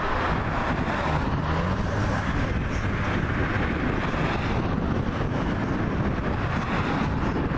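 Cars driving past on the road: a steady rush of tyre and engine noise mixed with wind on the microphone.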